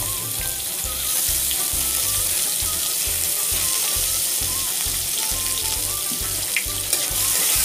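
Chopped onions sizzling steadily in hot oil with cumin seeds in a non-stick kadai, stirred with a spatula, frying at the start of a tadka masala.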